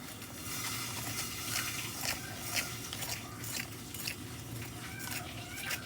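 A person biting into and chewing a piece of crispy fried chicken: irregular crisp crackles of the breading.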